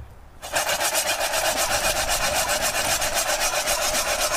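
Piñon nuts in their shells rattling and sliding in a metal pan as it is shaken back and forth over the fire, a rapid, even rasping that starts about half a second in.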